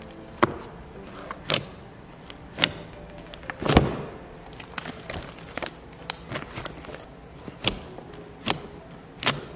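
Fluffy shaving-cream slime being squeezed and stretched by hand, giving sharp wet pops and squelches about once a second as air pockets burst. The loudest pop comes a little under four seconds in.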